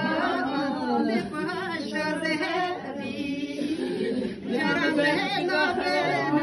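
Women singing a funeral lament together, unaccompanied, their voices rising and falling in a slow wailing line, with a short lull just after the middle before the singing swells again.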